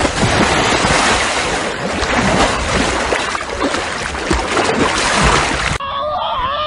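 Floodwater splashing and sloshing heavily around a car, a dense steady rush of water. About six seconds in it cuts off abruptly and a different pitched sound with a rising glide takes over.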